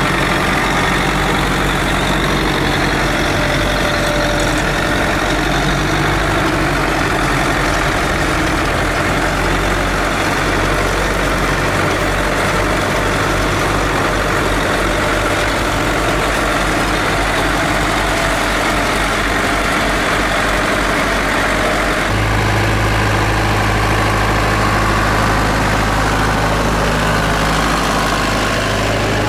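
Tractor engines running steadily, with an abrupt change in the low engine note about three-quarters of the way through.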